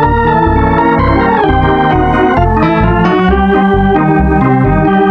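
Organ music: a sustained chordal tune with the chords changing every second or so over a bass line that steps along about twice a second.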